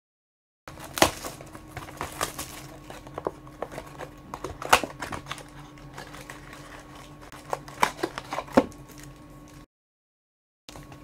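Foil-wrapped trading-card packs being torn open and crinkled by hand, with irregular sharp crackles and clicks from the wrappers and cards, over a faint steady hum. The sound cuts out completely for about a second at the start and again near the end.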